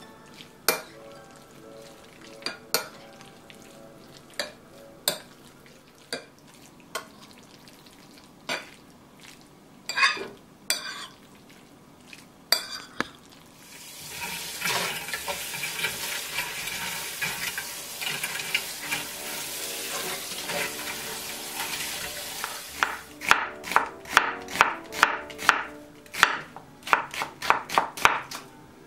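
A metal spoon tapping and scraping against a glass bowl at irregular intervals while mixing marinated beef. Then a steady hiss for about nine seconds. Near the end, a kitchen knife slicing an onion on a wooden cutting board in quick strokes, about three or four a second.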